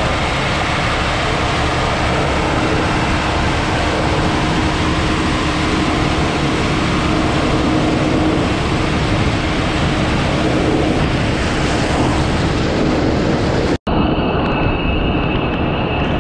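Floodwater rushing and splashing against the tractor's tyres and underside as it drives through, a dense steady wash of noise. Near the end the sound changes suddenly to a steady high whine over the rush.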